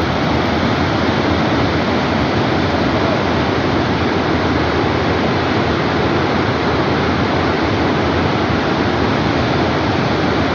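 The Rhine Falls: a loud, steady rush of water pouring over the falls, with no breaks.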